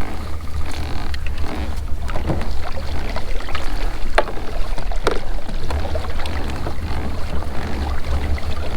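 Wind buffeting the microphone on a kayak, a steady, choppy low rumble, with a few sharp knocks and clicks against the boat.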